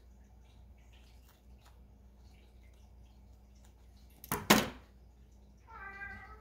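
Scissors cutting a thin paper napkin: faint paper rustles and small snips, then one louder snip-and-crinkle about four seconds in. A short pitched call follows near the end.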